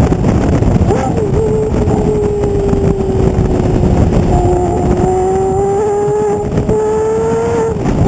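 Porsche Carrera GT's 5.7-litre V10 heard right at the exhaust tip while driving, holding a steady, loud note that sags a little and then climbs. The note breaks briefly about a second in and again just before the end.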